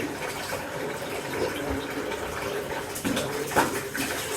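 Tap water running steadily into a bathtub, a continuous rushing splash, briefly a little louder about three and a half seconds in.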